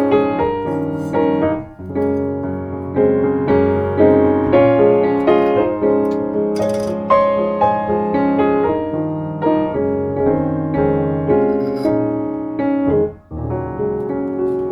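Background music: a piano playing a gentle melody over chords, with notes struck at a steady, even pace. It pauses briefly about two seconds in and again near the end.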